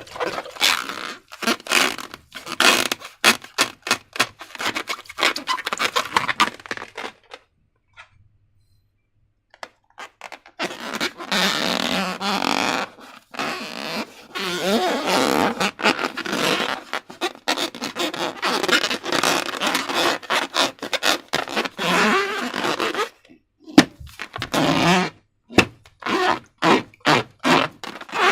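Wet, sticky slime being squished and worked: squelching with quick popping clicks, paused for about three seconds near a third of the way in, then a longer stretch of denser squelching before the clicks return.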